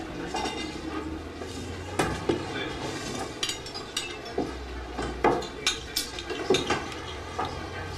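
Dishes and cutlery clinking and knocking, about a dozen irregular sharp strikes over a low steady hum.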